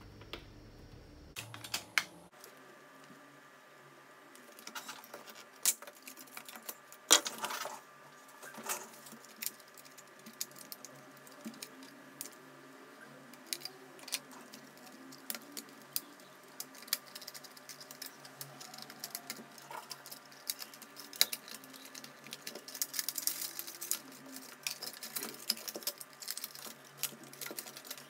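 Irregular light clicks and taps of plastic parts as the housing of a Bosch CNHR22 hand mixer is pried apart and its internals handled, with a louder clatter about seven seconds in.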